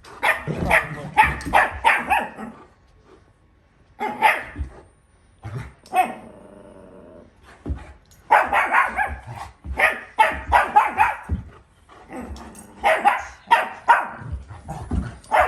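A dog barking in quick clusters of sharp barks, with growling, during rough play-fighting. There are short pauses between the clusters.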